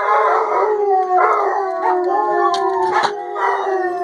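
Pet dogs howling, long drawn-out howls that overlap and slide slowly in pitch, set off by their owners leaving the house.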